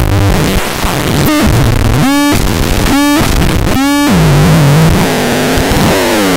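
Schlappi Engineering 100 Grit eurorack feedback and distortion module provoked by hand on its touch points. It gives a loud, gritty noise with shifting low tones, and three short squealing tones sound about a second apart midway through.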